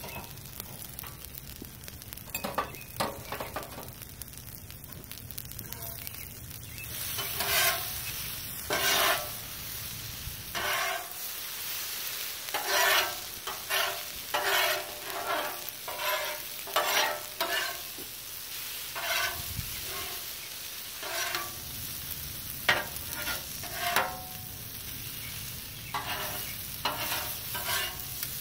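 Noodles and sliced peppers sizzling on a Blackstone flat-top steel griddle, while metal spatulas scrape and clack against the cooking surface as the food is tossed. The scraping strokes come thick and fast from about seven seconds in.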